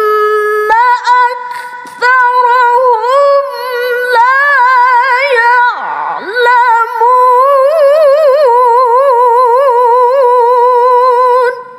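A woman reciting the Quran in tilawah style, holding long high melismatic notes with quavering ornaments through a microphone. There is a short break about halfway, and the voice stops just before the end.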